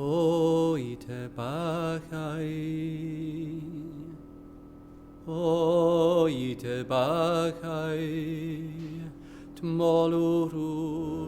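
A man's voice chanting in short, slow phrases of wavering, ornamented notes, over a low held tone, with a brief pause partway through.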